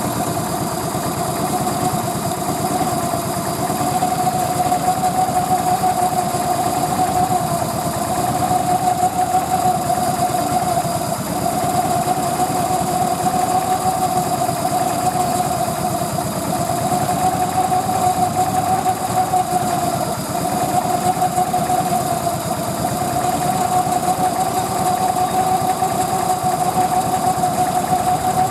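Train's diesel engine idling steadily: a constant mid-pitched tone over a fast, even throb.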